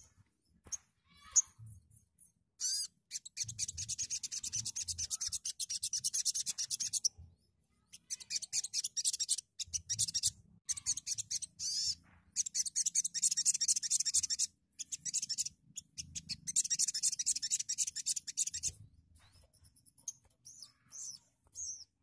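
Sogon (sogok ontong) sunbird singing in four bouts of fast, high-pitched chattering trills, each two to four seconds long with short pauses between, then a few softer chirps near the end.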